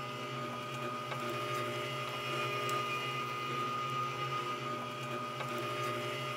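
A steady mechanical hum, like a small electric motor running, with a constant whine over it and a few faint clicks.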